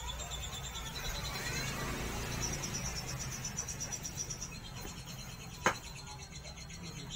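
Insects trilling in the background, steady high pulsing chirps over a low steady hum, with one sharp click near the end.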